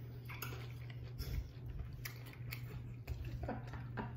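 Loud, deliberately exaggerated open-mouth chewing and lip smacking: an uneven run of wet smacks and small crunches.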